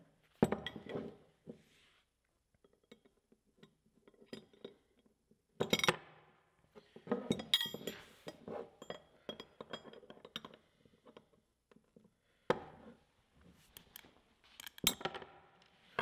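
Steel combination wrenches clinking and clanking against a padlock's hardened steel shackle as they are fitted and levered apart, with several sharp metallic cracks, one of them the shackle snapping.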